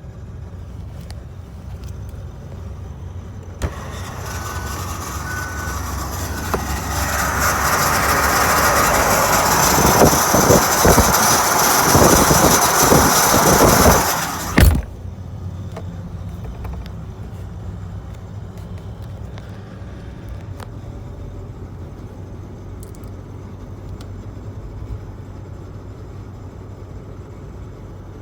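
SsangYong Musso running, with a loud rising noise that starts about four seconds in, builds for about ten seconds, then cuts off suddenly with a thump, leaving the steady low running sound. This is the strange noise the owner reports, which goes away when high-range 4WD is selected or the vehicle is shifted between reverse and forward.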